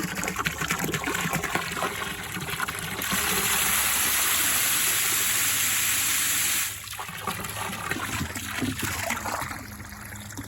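Well water running from a hose into a cattle stock tank at a modest flow, a steady trickle. The sound turns to a louder, even hiss for about four seconds in the middle, then drops back abruptly.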